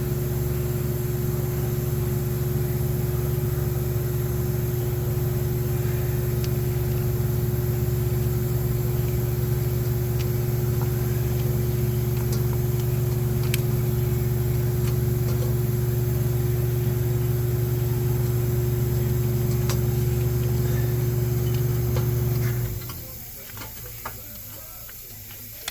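A steady, loud mechanical hum from a running motor, which cuts off suddenly near the end, leaving a few faint clicks.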